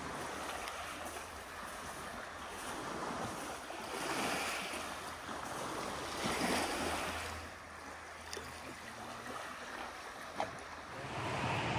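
Waves washing ashore, a steady wash that swells and falls, loudest about four and six or seven seconds in.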